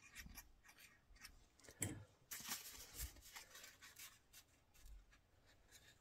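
Faint handling of cardstock: paper rustling and rubbing as a glued tab is folded and pressed down, with a couple of soft knocks about two and three seconds in.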